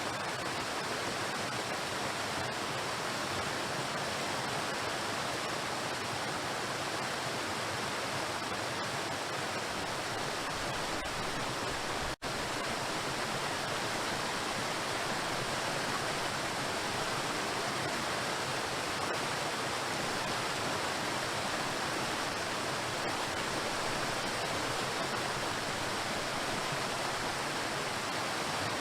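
Waterfall: water pouring and crashing onto rocks in a steady, even rush, with a split-second dropout about twelve seconds in.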